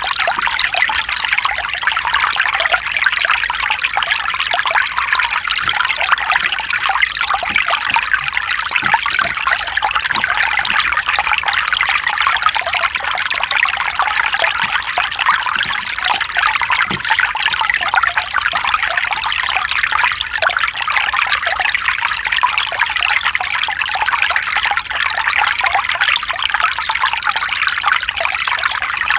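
Mountain stream: water running and trickling over rocks in a steady, unbroken rush.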